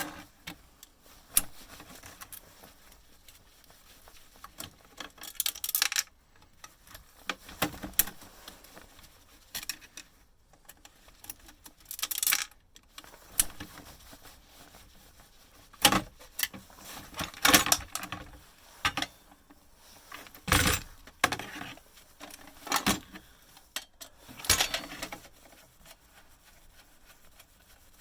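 Irregular clinks, knocks and clatters of small metal parts and hand tools being handled while a bread maker is taken apart, some louder than others, with short pauses in between.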